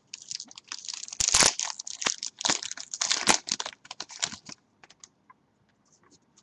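A trading-card pack wrapper being torn open and crinkled by hand for about four and a half seconds, then a few light clicks and rustles of cards being handled.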